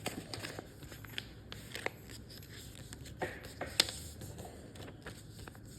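A sheet of paper being folded and creased by hand: soft rustling with a few scattered crackles and taps, the sharpest about two thirds of the way through.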